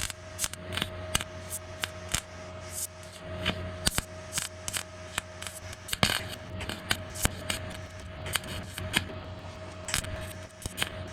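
Tack welding on sheet-metal patch panels: a quick, irregular run of sharp crackles and clicks over a steady hum.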